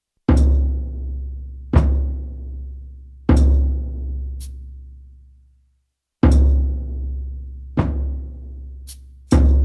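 Shamanic frame drum struck slowly, six deep booming strokes about one and a half seconds apart, each ringing on and fading away. They come in two groups of three with a brief silence between, and a couple of light clicks fall between strokes.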